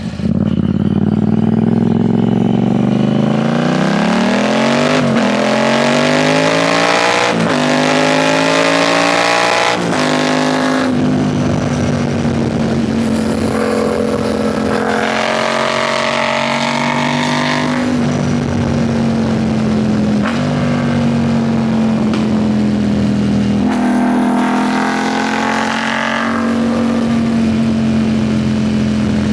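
Yamaha MT-07's 689 cc parallel-twin engine accelerating through the gears: its note climbs and drops back at each of three upshifts in the first ten seconds. It then runs at a steady note, with a few brief dips.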